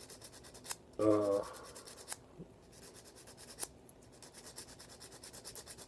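Sanding stick rubbed back and forth over a plastic model kit part, a fast run of light scratchy strokes as a mould seam is smoothed down, with a few sharper ticks.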